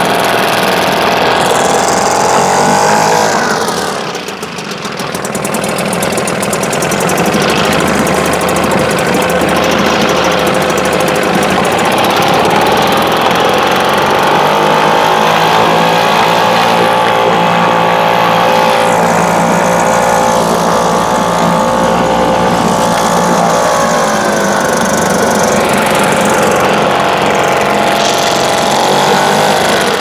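British Seagull Forty Plus single-cylinder two-stroke outboard motor running in a bin of water. Its revs fall sharply about four seconds in and recover, pick up again around the middle, and drop once more at the very end.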